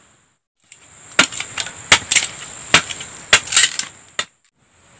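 Small wood-and-bamboo campfire crackling, with sharp irregular cracks and pops for about three seconds, over a steady high trill of crickets.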